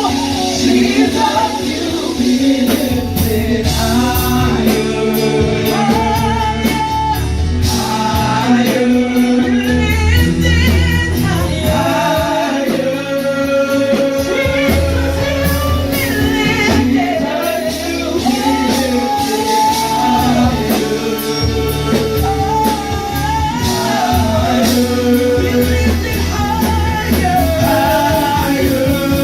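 Live worship band music with singing.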